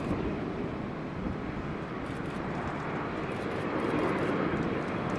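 Jet engines of an Airbus A330-300 airliner coming in to land, a steady rushing noise that swells slightly about four seconds in.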